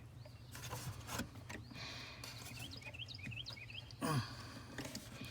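Faint clicks and scrapes of hands working a plug-in turn-signal flasher into its tight socket under a Jeep's dash. A small bird chirps a quick run of short notes in the background around the middle, and there is a brief louder sound about four seconds in.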